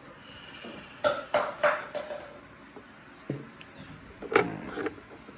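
Handling noises as a foam air filter is worked onto the air box's intake flange by a gloved hand. There are a few short rubbing and knocking sounds, clustered about a second in and again around three to four seconds in.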